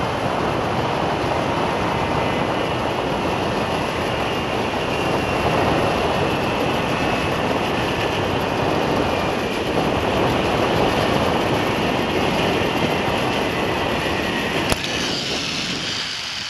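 Strong wind rushing over a head-mounted camera's microphone as the rider speeds down a long zip wire, with the trolley running along the steel cable. A sharp click comes near the end, after which the rush lessens as the ride slows toward the landing.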